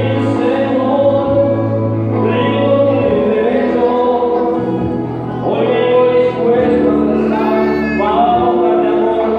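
A group of voices singing a Christian worship song with instrumental accompaniment, held notes over a steady low bass.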